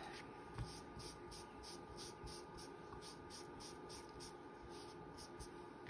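Very quiet, soft light strokes on paper repeating about three times a second, from ink being applied to a thin paper cutout.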